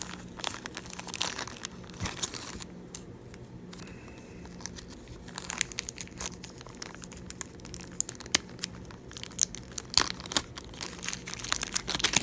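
Plastic packaging crinkling and rustling, with irregular small clicks of small tool parts being handled, over a faint steady low hum.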